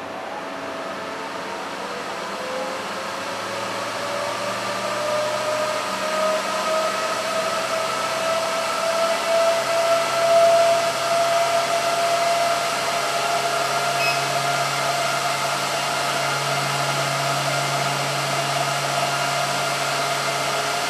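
Cooling fans of an FMT-1000H 1 kW FM transmitter spinning up after power-on. A steady rush of air grows slowly louder, with a faint whine that rises gently in pitch.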